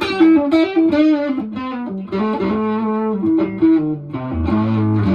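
Electric guitar played through a Harmonic Percolator-style overdrive/fuzz pedal prototype: a phrase of picked notes, several sustained and changing in pitch every second or so, with a gritty driven tone.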